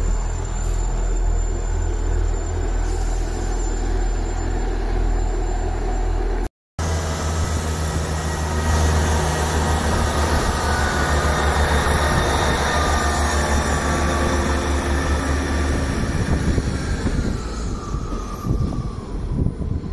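South Western Railway diesel multiple unit running along the platform, its diesel engines rumbling steadily with wheel and rail noise. The sound cuts out for a moment about a third of the way in, and near the end a whine falls in pitch.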